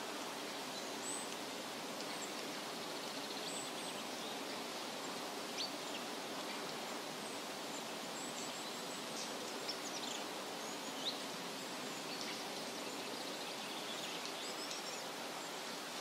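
Forest ambience: a steady, even rushing hiss with faint, high bird chirps scattered through it now and then.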